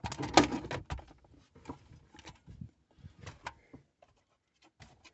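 Plastic clicks, knocks and rattles of dashboard trim and a car stereo being worked loose from their snap-in clips, busiest in the first second, then a few scattered clicks that die away.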